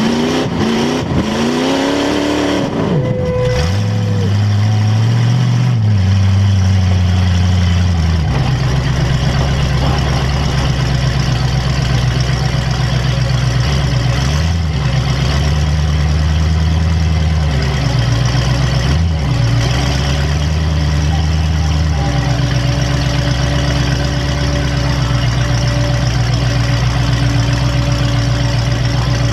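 Demolition derby car's engine heard from inside the car, revved up and down several times in the first few seconds, then running steadily at a fast idle with a couple of brief dips.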